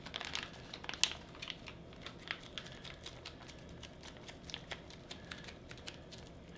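Foil-laminate ration pouch crinkling and crackling in the hands as it is squeezed and folded to get the last of the food out: a string of small irregular clicks, with a sharper crackle about a second in.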